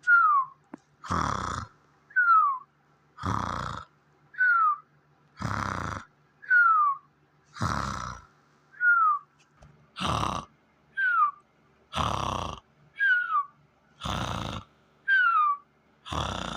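Cartoon-style snoring and whistling: a rasping snore on each in-breath followed by a short whistle that falls in pitch on the out-breath. The cycle repeats evenly about every two seconds, eight times over.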